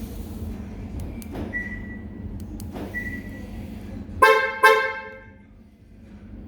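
Car horn chirping twice in quick succession, two short toots about half a second apart: the confirmation chirp of a remote-start alarm system being operated. Shortly before, two brief high beeps sound.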